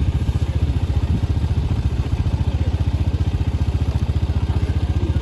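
Farm tractor engine idling close by: a steady, fast, even low chugging.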